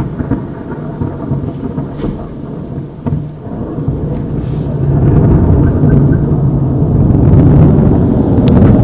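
Thunder rumbling, easing off at first and then swelling again about halfway through into a long, loud roll.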